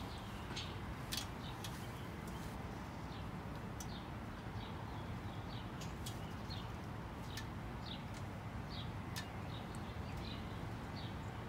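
Small birds chirping over a steady outdoor hiss: many short, quick chirps, each dropping slightly in pitch, repeated throughout, with a few sharp clicks mixed in.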